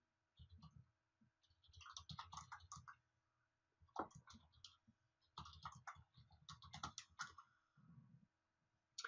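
Faint typing on a computer keyboard, in irregular bursts of clicks, with one sharper click about four seconds in.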